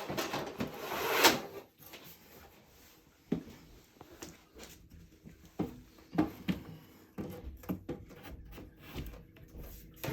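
A back panel being handled and slid into a wooden dresser's frame: a scraping slide in the first second or so, then scattered light knocks and taps of the panel against the wood.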